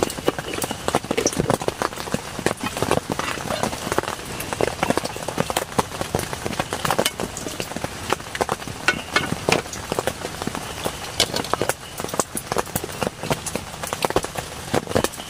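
Heavy rain, with big drops landing in a dense, irregular patter of sharp taps on a nearby surface.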